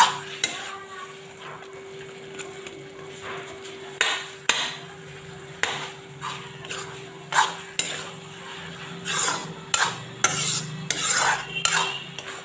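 Spatula stirring and scraping taro greens and fish-head fry around a pan, with irregular scrapes and knocks against the pan every second or so, busier near the end. A steady hum runs underneath.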